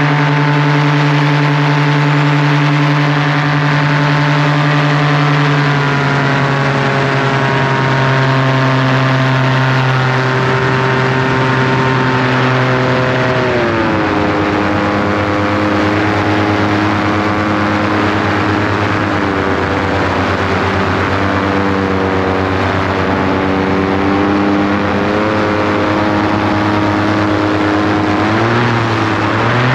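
An engine running loud and steady. Its pitch steps down about six seconds in, drops sharply about halfway through, then climbs back up near the end.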